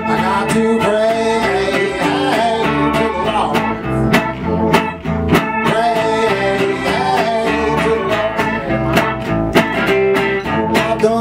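Small live band playing between sung lines: strummed acoustic guitar with a second acoustic guitar and a keyboard, keeping a steady strummed beat.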